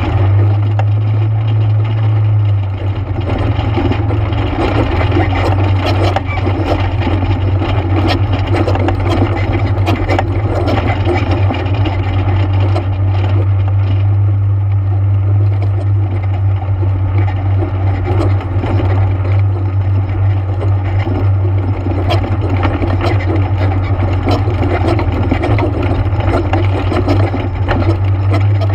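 ATV engine running steadily, a continuous low drone whose pitch steps up slightly a couple of seconds in.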